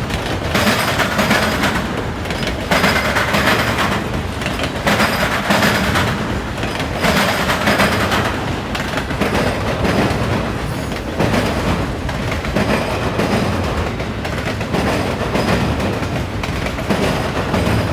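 Autorack freight cars rolling past, their steel wheels pounding over a railroad diamond crossing in a continuous clatter that swells every couple of seconds.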